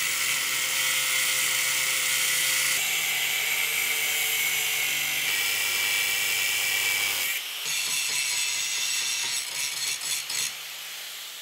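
Angle grinder cutting into the edge of a stainless steel plate: a steady motor whine under the hiss of the disc biting the metal. It breaks off about seven seconds in, starts again a little quieter, and fades near the end.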